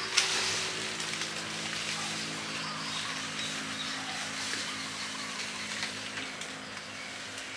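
A motor running steadily with a low, even hum, and a single sharp knock just after the start.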